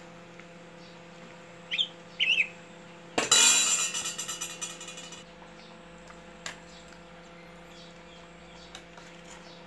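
A metal ladle strikes a stainless steel stockpot about three seconds in, and the pot rings brightly for about two seconds as it fades. A steady electrical hum runs underneath, with two short high chirps just before the strike and a single click later.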